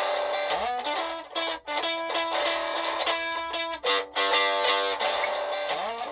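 Electric guitar playing a simple blues lick through a Smokey pocket amplifier, layered with a looped part from a Ditto looper, with notes bent upward a couple of times.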